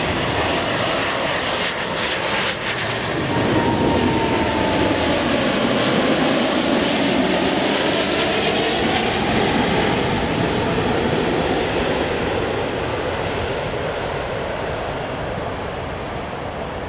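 Jet engine noise from a Boeing 777-200ER on landing approach, building as it passes close by and then slowly fading. A faint whine drops slightly in pitch a few seconds in.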